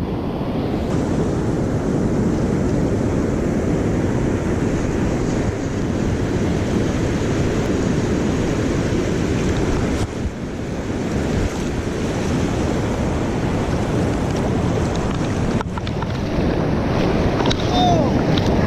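Ocean surf washing and breaking steadily, with wind noise buffeting the microphone.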